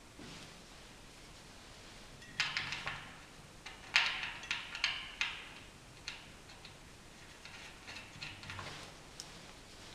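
Light clicks and taps of a metal bracket and small bolts being handled against a wooden board. They come in two short flurries, about two and a half and four seconds in, with a few faint ticks later.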